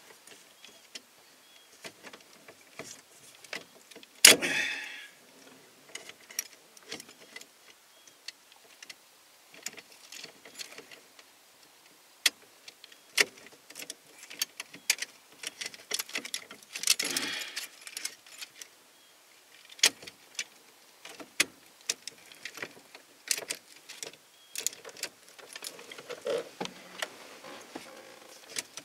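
Plastic and metal parts of a 1991 Ford F-150 steering column clicking and rattling as they are fitted by hand, with keys jangling on their ring in the ignition lock. A sharp clack comes about four seconds in, and a longer rattle comes near the middle.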